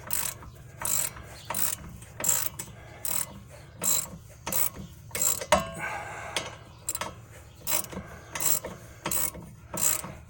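Hand socket ratchet worked back and forth to back out a stubborn rear air shock bolt: a short burst of ratchet clicks on each return stroke, a little over one stroke a second. About halfway through, one sharper metallic clink.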